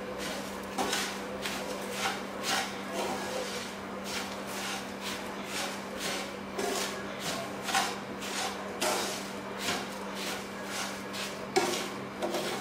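Wooden spatula stirring and scraping roasted semolina and sugar in a nonstick pan: irregular scraping strokes, about two a second, over a steady low hum.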